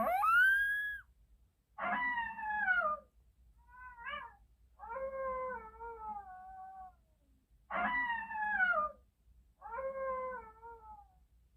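Animal calls: a series of about six drawn-out, pitched wails, most about a second long and falling in pitch, with short gaps between them.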